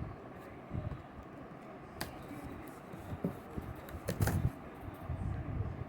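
Cardboard packaging being handled and opened: rustling with scattered light clicks and knocks, the sharpest about two seconds in and a louder cluster just after four seconds.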